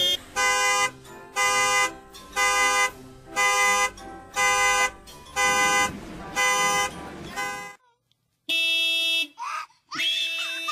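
A car alarm sounding the car's horn in repeated honks, about one a second, each about half a second long. After a sudden break two more honks follow, with a short high squeal between them.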